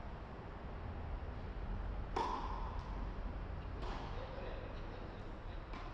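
Tennis balls struck back and forth in a singles rally: three sharp hits roughly two seconds apart, the first the loudest with a short ring, over a low steady hum.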